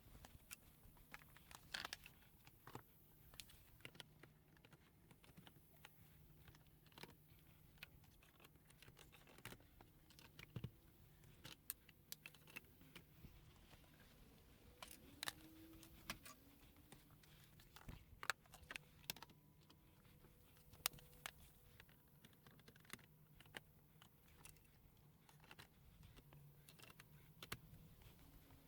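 Faint, scattered light clicks and knocks of plastic parts being handled, typical of composite boards and snap-lock brackets being fitted together, over a faint low hum.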